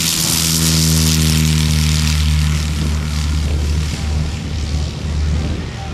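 Single-engine piston light aircraft running at takeoff power on its takeoff roll: a steady propeller-and-engine drone that turns rougher and less even about halfway through as the plane moves away.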